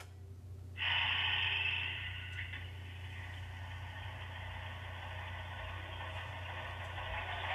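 Sound-equipped HO-scale model of an Alco HH600/HH660 diesel switcher, its onboard sound decoder playing diesel locomotive sounds through the model's small speaker. A steady low engine hum is joined about a second in by a sudden louder rushing sound that keeps on as the model starts to roll.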